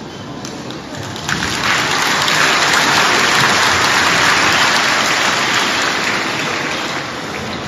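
Audience applauding, swelling about a second in and tapering off near the end.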